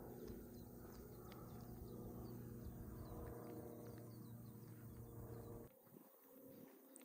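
Faint rural ambience of small birds chirping repeatedly over a steady low hum; the hum cuts off abruptly near the end.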